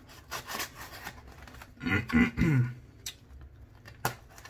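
Benchmade pocket knife cutting open a shipping package: a few short scraping cuts, then a brief hummed vocal sound with falling pitch about two seconds in, the loudest sound, and a sharp click near the end.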